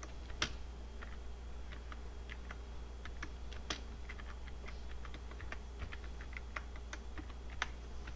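Computer keyboard keys clicking in slow, irregular typing, with a few louder keystrokes, over a steady low hum.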